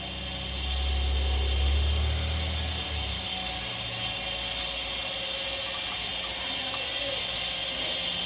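Electric motor driving the hand pump, running with a steady whine and a low hum that is stronger for the first few seconds.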